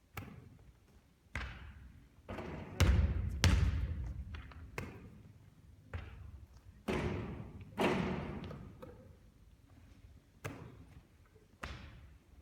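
Basketball thuds, about a dozen at uneven intervals, each one echoing briefly.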